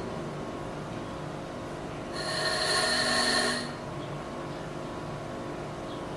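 A small electric motor runs with a steady high-pitched whine for about a second and a half, starting about two seconds in, over a low background hum.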